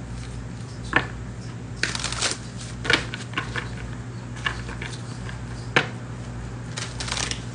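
A deck of reading cards being shuffled by hand: short bursts of card rustle and flicks, with a sharp tap a little before six seconds in, over a low steady hum.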